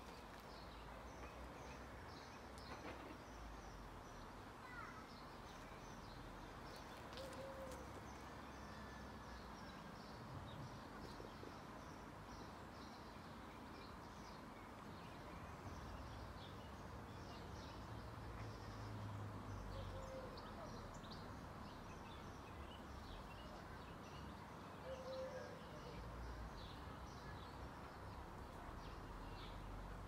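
Faint garden ambience: steady background noise with scattered short, high chirps of small birds and a few brief low coos.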